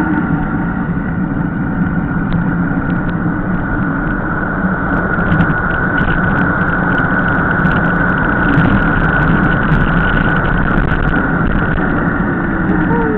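Wind rushing over the microphone and tyre noise from a mountain bike descending a wet asphalt road at speed. A loud, steady rush, with a few clicks and rattles through the middle.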